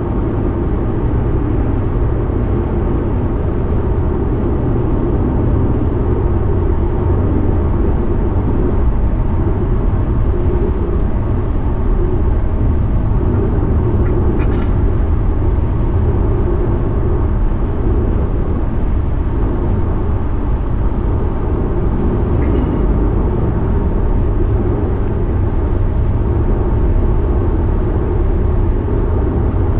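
Steady road noise inside a car cruising at highway speed: a low, even rumble of tyres and engine, with a couple of faint clicks.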